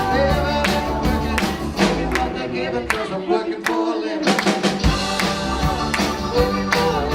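Live rock band playing an instrumental passage, with a drum kit keeping a steady beat under sustained guitar or keyboard lines. About three seconds in, the bass and low drums drop out for a couple of seconds, then the full band comes back in on a hit.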